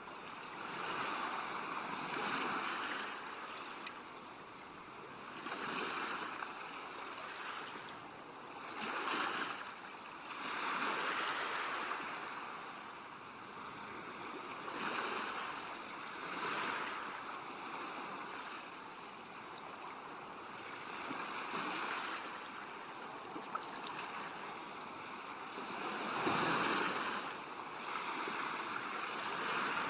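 Ocean surf: waves breaking and washing up in irregular surges every few seconds, the strongest one near the end.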